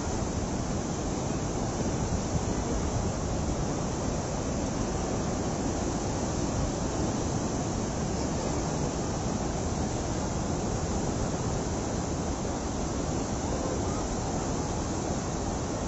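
Steady, loud rush of the Mahakali River in flood, a muddy torrent running high up against the road embankment.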